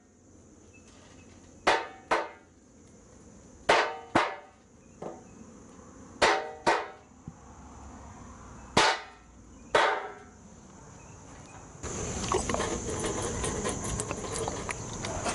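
Wooden hive frame knocked sharply against a stainless steel tray about ten times, often in quick pairs, with a short metallic ring after each knock: a frame knock to jar bees and debris loose for a varroa mite check. Near the end a steady noisy hiss with crackling sets in.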